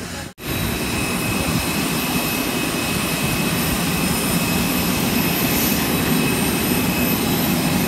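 Jet airliner turbine running on the apron: a steady roar with a thin high whine over it.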